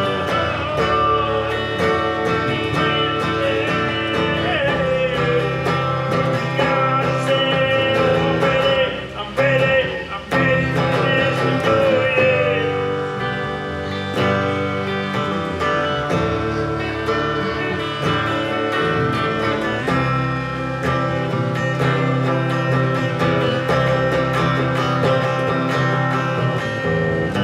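Live country music: an instrumental break with acoustic guitar playing and a gliding melody line over it, between sung verses. There is a brief drop in the sound about nine to ten seconds in.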